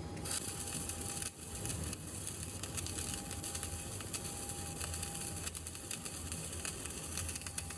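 CO2-shielded MIG welding arc crackling steadily as the first (root) pass is run vertical-up on a 3G joint at about 25–27 V. The crackle breaks off briefly a little over a second in.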